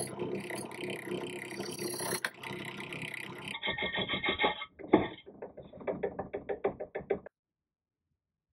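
Wire wheel brush spinning in a drill press, scrubbing against a small steel box, with a sharp knock about two seconds in. From about three and a half seconds the same grinding plays again, duller and muffled, with a rapid run of knocks, and it cuts off suddenly about seven seconds in.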